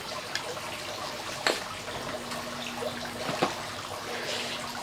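Steady hiss of background noise with a few short, light clicks and knocks, the kind made by a small child handling a book on a tile floor. A faint steady hum comes in about two seconds in.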